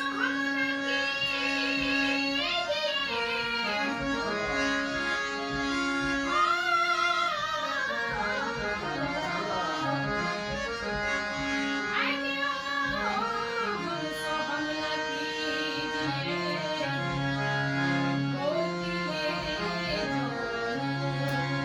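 A woman singing a devotional bhajan in long, ornamented phrases over a harmonium holding sustained notes.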